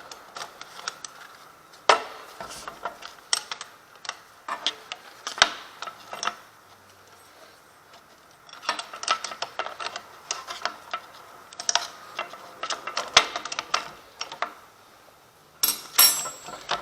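Small metal parts of an angle grinder stand, a nut and locking washer on the guard holder rod, clicking and rattling as they are handled and fitted by hand, in irregular bursts of light taps with short pauses between.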